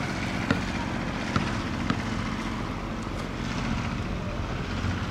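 Steady low outdoor rumble with a few short sharp knocks in the first two seconds.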